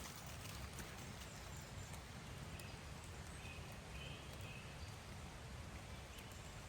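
Quiet woodland ambience: faint footsteps on the forest floor over a low rumble, with a brief faint chirp about four seconds in.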